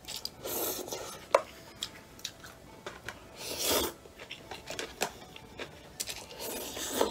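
Noodles slurped in from chopsticks three times, each slurp a rushing hiss under a second long, with a few light clicks of chopsticks against a plastic takeaway bowl between them.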